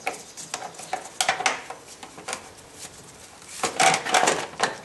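Hard plastic timing belt cover clattering, knocking and scraping against engine parts as it is wiggled out by hand. There are scattered clicks, then a denser burst of clatter near the end.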